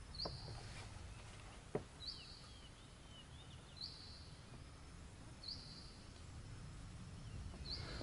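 Quiet rainforest ambience: a short, high call from the forest repeats five times, about every two seconds. Faint bird chirps come in between two and three seconds in, and there is a single light knock near two seconds in.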